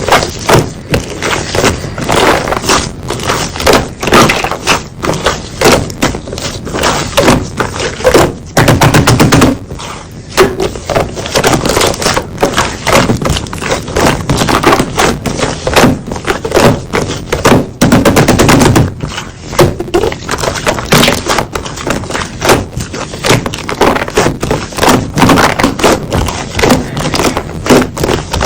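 Slime being squeezed and worked by hand, giving a dense run of rapid, irregular popping and crackling clicks.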